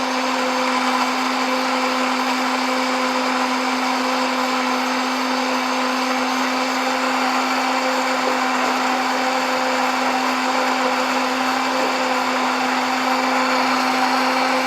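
Electric blender running at a constant speed, puréeing grapes, carrot, ginger and orange with water until smooth: a steady, even-pitched motor hum with the whirr of the blades through the liquid.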